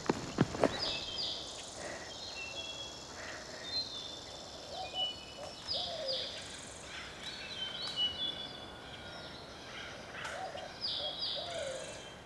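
Woodland ambience: several birds chirp and whistle over a soft outdoor hiss, with a few lower calls in the middle and near the end. A few sharp knocks come right at the start.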